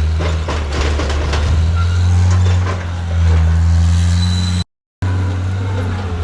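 Skid steer's diesel engine running steadily under load, with scattered knocks and cracks of logs being pushed and gripped. The sound cuts out completely for about a third of a second about three-quarters of the way through.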